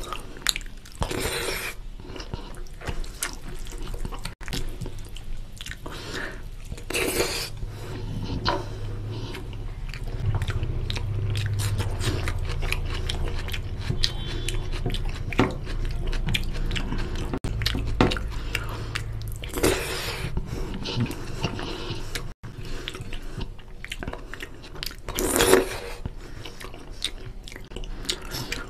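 Close-miked eating of rice and chicken curry by hand: wet chewing and mouth clicks, with fingers squishing curry-soaked rice on the plate and a few louder brief breathy bursts, over a steady low hum.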